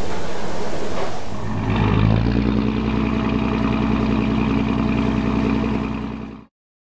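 A boat engine running with a steady low hum, after about a second and a half of even rushing noise; the sound fades and cuts off shortly before the end.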